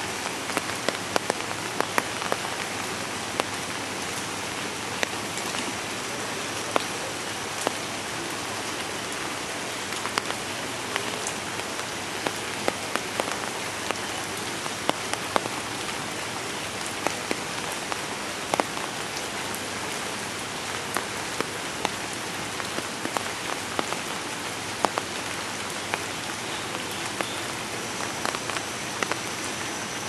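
Steady rain falling on wet ground and a muddy puddle: an even hiss with many heavier drops ticking at irregular intervals.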